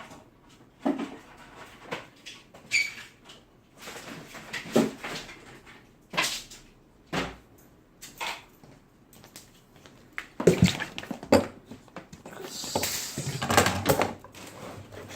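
Irregular knocks, clacks and scraping of objects being handled on a workbench, with a short squeak about three seconds in and a longer rustling, clattering stretch near the end.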